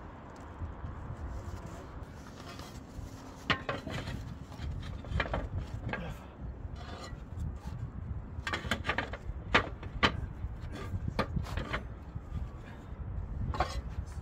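Irregular knocks, clacks and scrapes of roofing materials being handled, with a cluster of sharp knocks in the second half over a steady low rumble.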